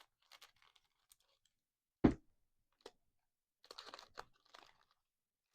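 Trading cards being handled and slid against one another, with soft rustles and clicks, and a single sharp knock about two seconds in.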